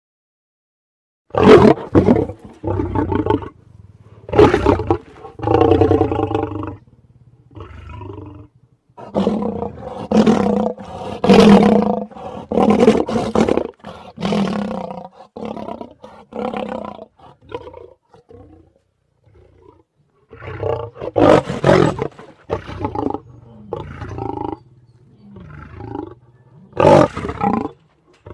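A long string of lion roars, some long and some short, separated by brief pauses, with a quieter lull about two-thirds of the way through.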